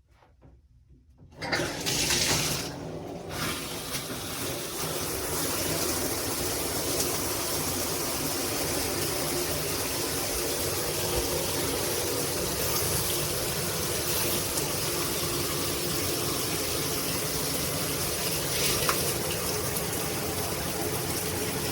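Water comes on suddenly about a second in, then a GRICH 2-in-1 rainfall and handheld shower head sprays steadily.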